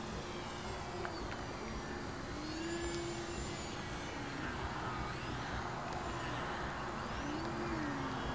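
Electric RC aerobatic plane's motor and propeller whining in flight, the pitch rising and falling twice as it manoeuvres.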